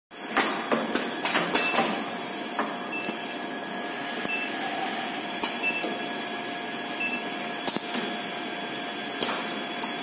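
Automatic thermocouple welding and crimping machine running: a quick series of sharp clacks from its pneumatic clamps and actuators near the start, then single clacks every couple of seconds, over a steady machine hum. Faint short high peeps come at a regular pace.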